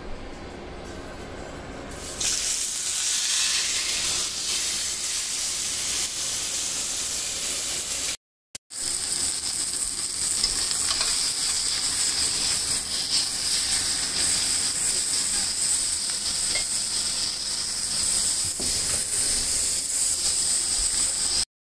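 A seasoned beef chuck roast sizzling as it sears in a hot stainless steel skillet: a steady high frying hiss that starts suddenly about two seconds in, with a brief break about eight seconds in.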